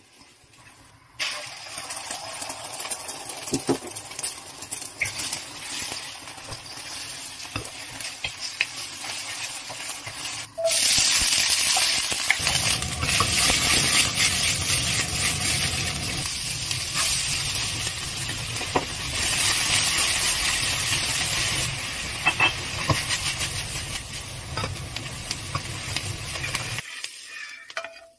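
Chives and egg being stir-fried in a wok: hot oil sizzling, with the scrape and clack of a spatula and the tossing wok. The sizzling starts about a second in and turns much louder about ten seconds in.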